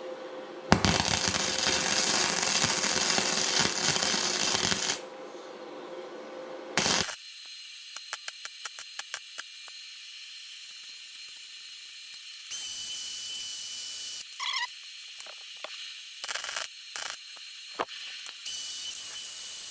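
Wire-feed welder in use: about four seconds of loud arc crackle starting with a sharp crack, then a run of sharp clicks and two short steady hissing stretches as the torch is triggered again. The work was not grounded, which the welder takes for the cause of the odd behaviour.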